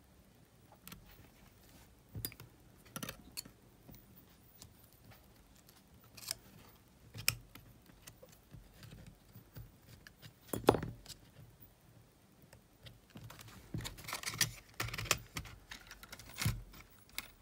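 Small clicks, taps and scrapes of hands and tweezers working on a Sony WM-GX822 cassette Walkman's circuit boards, ribbon cable and metal-and-plastic case. There is a single sharp click about ten and a half seconds in, and a denser run of clicks near the end as the case is closed.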